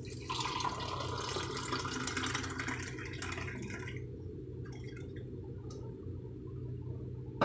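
Watermelon juice poured from a plastic jug into a glass tumbler: a splashing stream for about four seconds that then stops, leaving a few faint clicks. A steady low hum runs underneath.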